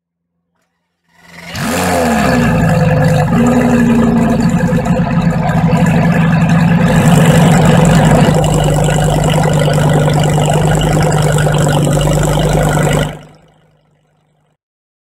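Lamborghini Gallardo LP 570-4 Superleggera's V10 starting up, its revs flaring up and dropping back within the first second, then idling steadily. The sound fades out near the end.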